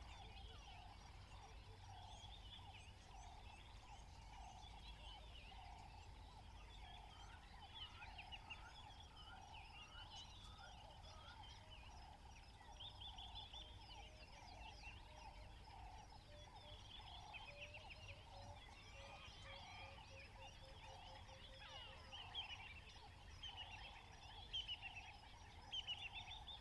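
Faint chorus of several wild birds calling: one repeats a low call over and over, while others add quick chirps and trills, with louder chirps near the end.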